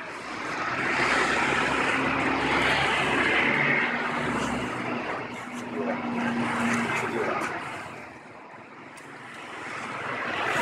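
Engine noise of passing motor vehicles, swelling and fading, loudest in the first half.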